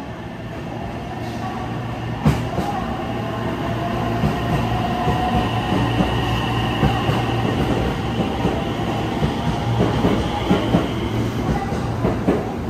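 JR West 227 series electric train running along the platform close by, its wheels clicking over the rail joints with a steady whine over the rumble, growing louder over the first few seconds.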